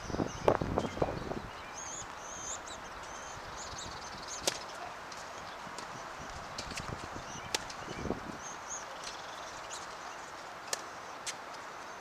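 Tennis rally on a hard court: sharp pops of racket strikes on the ball about every three seconds, with birds chirping faintly. A burst of dull thumps about half a second in is the loudest sound.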